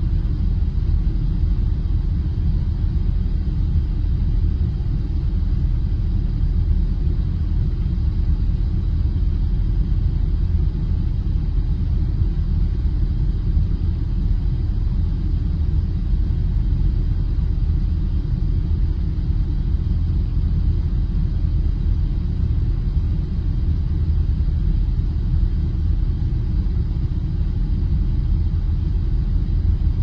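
Car engine running with a steady, unchanging low rumble, nearly all of it deep bass, used as a monotone white-noise background.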